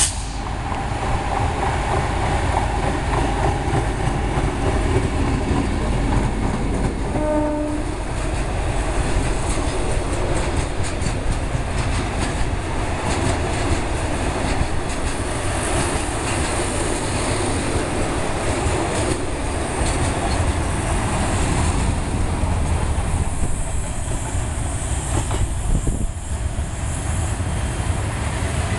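EMD G22CU diesel-electric locomotive hauling a freight train of container flat wagons past at close range, with a short horn blast about seven seconds in. After that come the wagons' wheels, clicking over the rail joints as they roll by.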